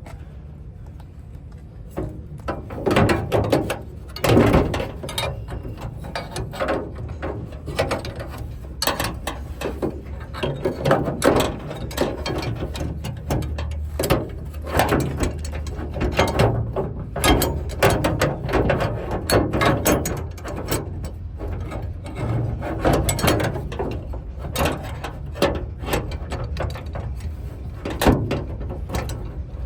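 Irregular metallic clicking, ratcheting and rattling of hand tools and door-lock hardware being worked, in quick runs of clicks throughout.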